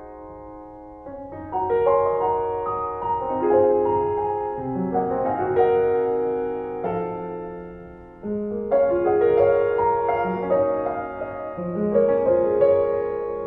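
Background instrumental piano music, a slow melody of single notes over chords.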